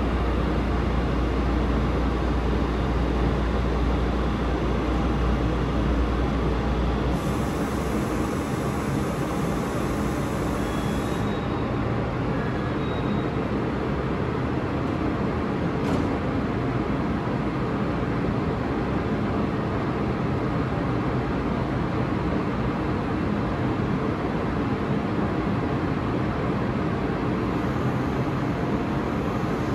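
Taiwan Railways EMU500 electric multiple unit standing at the platform with its onboard equipment running in a steady hum. A deep low drone cuts off about seven seconds in, and a hiss follows for a few seconds.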